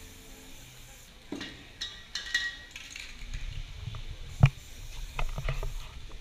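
Spray paint cans being handled at the painting table: scattered scrapes and taps, then one sharp knock about four and a half seconds in, followed by a few lighter clicks.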